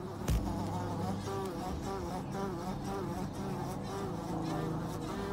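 Bumblebee buzzing steadily, a low insect drone, with one short knock just after the start.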